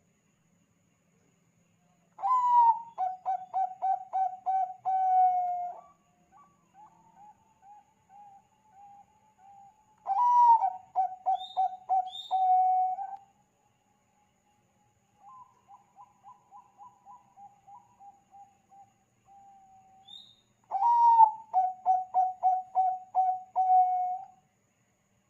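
Zebra dove of the Bangkok-bred perkutut type cooing. It gives three loud runs of quick staccato coos, each opening on a slightly higher note, with softer coo phrases in between.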